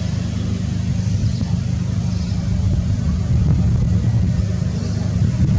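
Steady low rumble that holds at an even level, with no distinct calls or knocks standing out.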